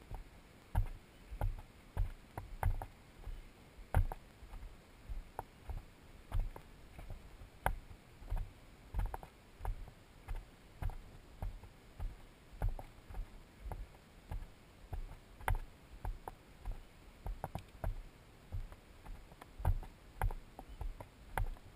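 Footsteps of someone walking on a dirt trail, heard through a body-worn camera: a steady dull thud a little under twice a second, with occasional sharper crunches.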